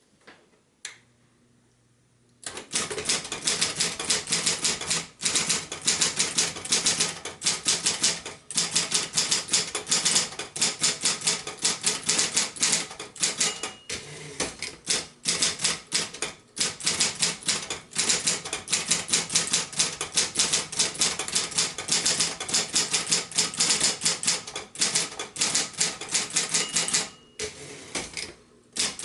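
1972 Royal Apollo 12-GT manual typewriter typing at a quick, steady pace, a fast run of sharp key strikes starting about two seconds in, broken by a few short pauses. Twice a brief ring is heard, the margin bell at the end of a line, followed shortly by a pause.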